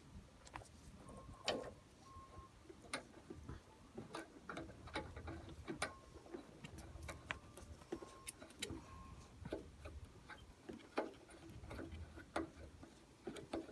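Light, irregular clicks and knocks of hand tools and metal parts being handled during work on an outboard motor's steering cable fittings.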